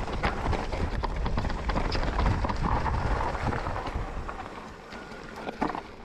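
Commencal Meta enduro mountain bike riding over a rough dirt trail: tyres crunching and the bike rattling with many quick knocks over a low rumble, easing off about four seconds in.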